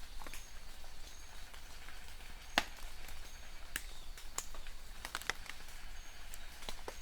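Steady rain hiss with scattered sharp drops and drips, the loudest about two and a half seconds in and a quick cluster around five seconds. A short high chirp sounds twice.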